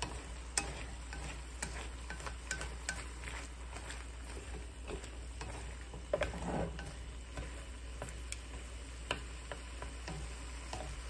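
Wooden chopsticks stirring sliced bitter melon and scrambled egg in a nonstick frying pan: scattered light clicks and scrapes of the chopsticks against the pan over the sizzle of the frying.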